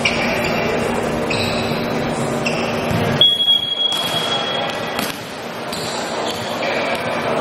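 Volleyball being played in an echoing gym: the ball being hit and sneakers squeaking on the hardwood court, with one long steady referee's whistle blast a little past the middle.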